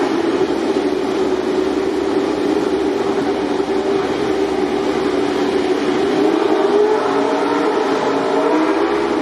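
MotoGP racing motorcycle engine running at a steady raised idle. Its pitch wavers slightly and shifts a little about six seconds in.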